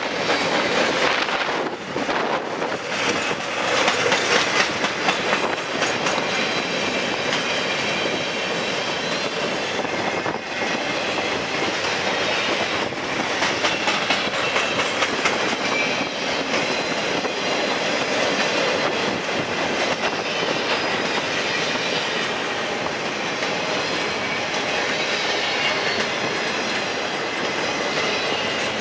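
Cars of a Norfolk Southern mixed freight train rolling past in a steady rush, their wheels clicking over the rail joints.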